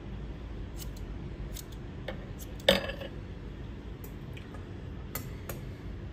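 A scatter of short, sharp metallic clicks from hair-cutting tools being handled, with one much louder clack a little under three seconds in.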